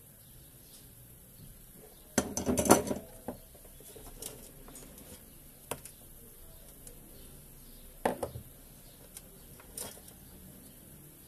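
Metal hand tools clattering on a workbench for about a second, starting two seconds in, then a few separate sharp clicks and taps as side cutters are worked at the wires of a small circuit board.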